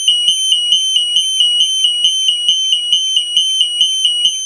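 Burglar alarm sounder going off during a sounder test: a loud, piercing high-pitched siren tone that warbles rapidly, stepping in pitch about four times a second.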